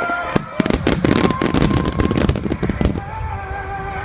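Large aerial fireworks shells bursting in dense, rapid succession, with sharp bangs and crackling. A few held tones sound over the bursts.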